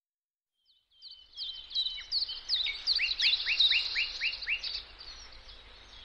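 Songbirds chirping: many quick, overlapping down-slurred chirps that start about a second in, grow busiest and loudest in the middle, and thin out toward the end.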